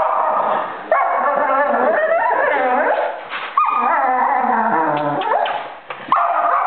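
Dog barking and howling at its own reflection in a mirror. The sound comes in three long bouts, each starting suddenly and falling in pitch.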